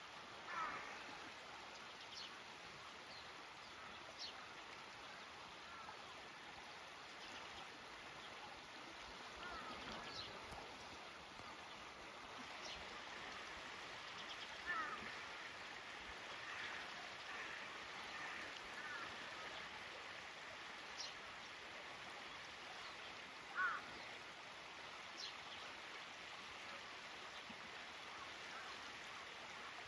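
Shallow river flowing steadily over riffles, with occasional short bird calls, crows among them. The loudest call comes about three-quarters of the way in.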